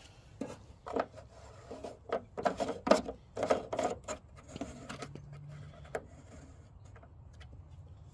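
Plastic retaining knob screwed onto the wire-spool spindle of a MIG welder, a quick series of clicks, knocks and rubbing plastic over the first four seconds. After that comes fainter rubbing as the spool is handled to check its tension.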